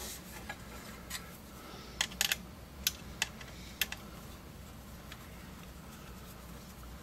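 Screwdriver clicking on the screw terminals of a furnace control board as a thermostat wire is fastened: a handful of sharp clicks in the first four seconds, several close together around two seconds in. Under them, and alone afterwards, a faint low hum.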